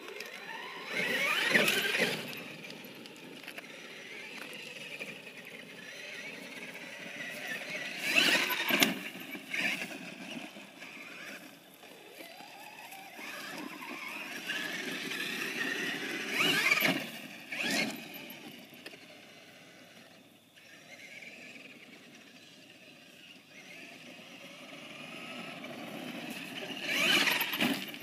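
Traxxas X-Maxx electric RC monster truck driving on dirt and gravel, its brushless motor and drivetrain whining up and down with the throttle. There are four loud bursts of spinning tyres and flung gravel.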